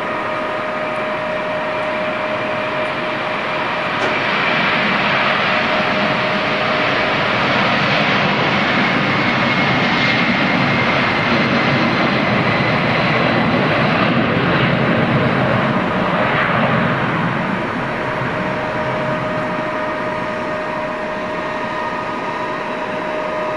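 Boeing 767's twin jet engines at takeoff thrust during the takeoff roll: a loud, steady rush of jet noise with high whining tones. It grows louder about four seconds in and eases off from about seventeen seconds as the jet speeds away down the runway.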